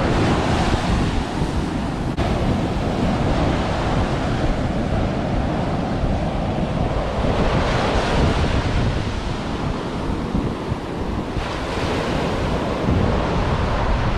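Ocean surf breaking and washing up a sandy beach, swelling as waves come in, with wind buffeting the microphone as a steady low rumble.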